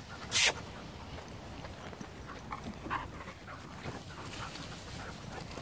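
A dog gives one short, harsh bark about half a second in, followed by a few faint, scattered dog sounds.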